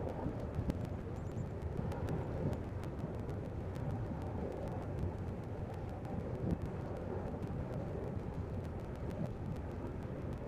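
Steady low rumble of the tugboats' diesel engines running while they hold against the ship, with wind on the microphone.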